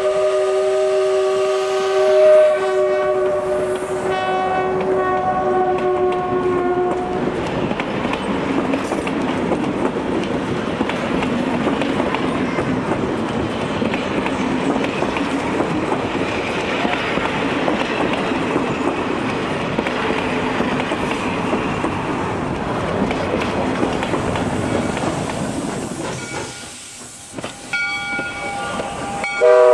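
The whistle of steam locomotive No. 607 (Tipo 57) sounds a long multi-note blast with short breaks for about the first seven seconds. Then the passenger carriages roll past close by with a steady rumbling rail noise. After a brief lull near the end, the whistle sounds again.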